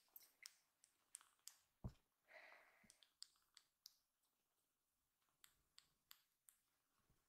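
Near silence with faint scattered small clicks and ticks, some in quick runs, and one faint soft rustle about two seconds in.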